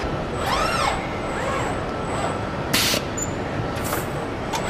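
Car assembly line with industrial robots at work: servo drives whine up and down in pitch over a steady factory din. A loud hiss of compressed air is released near the middle, with a shorter one a second later.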